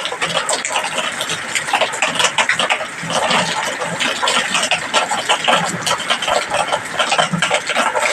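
Rain falling steadily, a dense hiss full of small crackling drop impacts.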